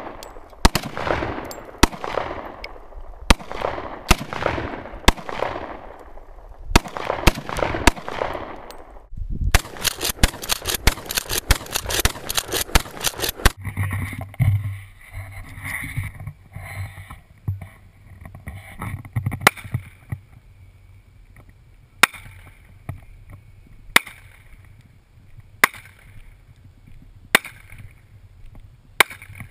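Gunshots on an open-air range: single shots about a second apart, each echoing off the hills, then a fast string of shots for about four seconds, then slower, quieter single shots about every two seconds.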